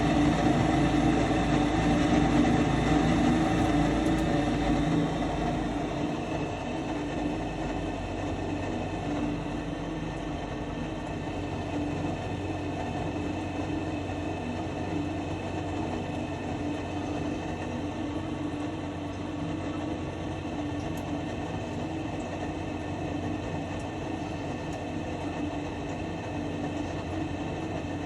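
Gas furnace motor running with a steady mechanical hum. A deeper rumble drops out about six seconds in, and the hum then carries on slightly quieter.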